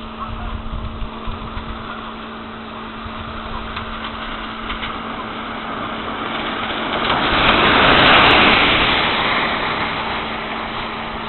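A vehicle passes, its noise swelling to a peak about eight seconds in and then fading, over a steady low hum.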